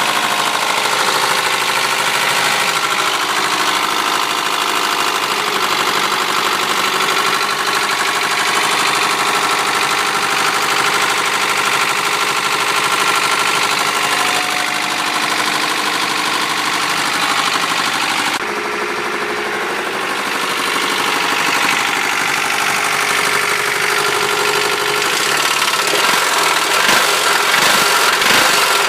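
Honda H23A1 2.3-litre four-cylinder engine of a 1993 Prelude running steadily, making the unexplained noise the owner is asking about. Its sound changes abruptly about two-thirds of the way through, and near the end an uneven low pulsing comes in.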